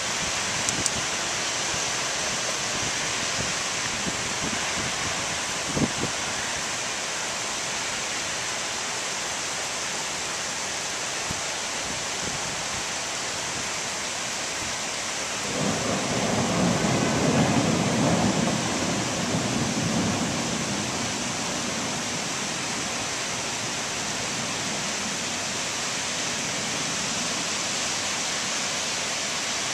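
Heavy rain falling steadily in a downpour, a continuous hiss. About halfway through, a roll of thunder rumbles in low and lasts about five seconds before fading back into the rain.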